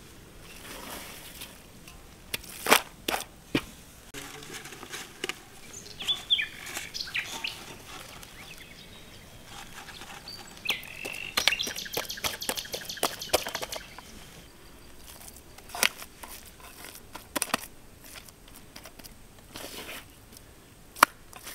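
Birds chirping in short calls, with a quick trill about halfway through, over scattered knocks and clatters of handling.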